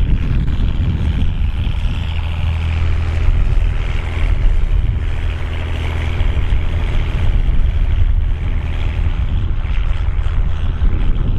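Volvo BM tractor's diesel engine running steadily, pulling a plough.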